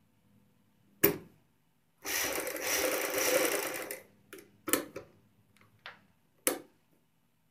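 Sewing machine running for about two seconds, stitching a seam around a kameez neckline, with several sharp clicks before and after the run.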